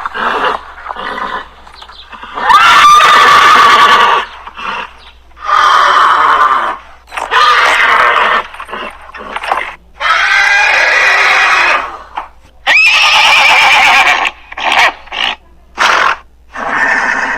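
Horse whinnying repeatedly: four or five loud, shaky neighs, each a second or two long, with shorter, quieter calls between them.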